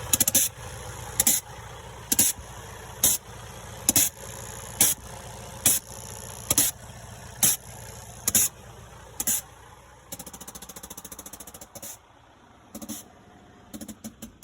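Air compressor safety valve on a Detroit DD15 diesel truck engine popping off in short, sharp hisses about once a second over the running engine, then fluttering rapidly and spitting irregularly near the end. The valve is blowing off because the compressor's outlet is blocked, which the owner suspects is ice plugging the line to the air dryer in extreme cold.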